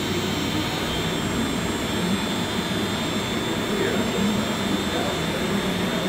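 Weiler Omni V220 industrial meat grinder running empty, its stainless auger turning at a raised speed with the grind motor running. The machine noise is loud and steady, with a faint high whine.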